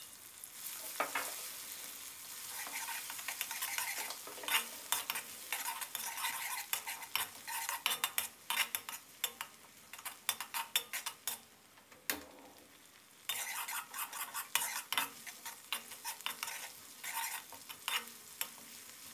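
Coarsely pounded chillies and garlic sizzling in hot oil in a wok while a spatula stirs and scrapes them, with frequent clicks against the pan: the aromatics are being fried until fragrant. The sizzle and scraping stop for about a second a little past halfway, then resume.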